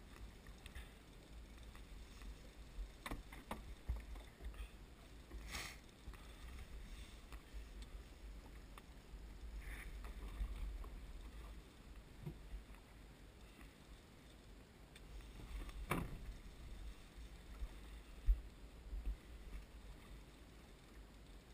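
Water lapping against the hull of a small drifting boat, with a low wind rumble on the microphone and a few scattered knocks.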